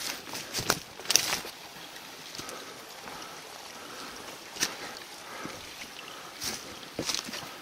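Footsteps of a walker on rough ground, a few scattered steps, over a steady faint rush of flowing water.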